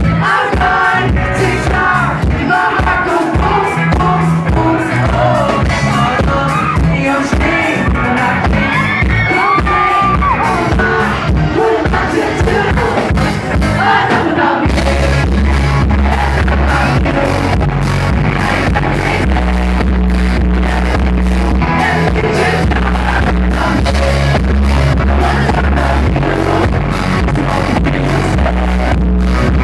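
Pop music with singing. About halfway through it changes abruptly to another song with a heavier, steadier bass.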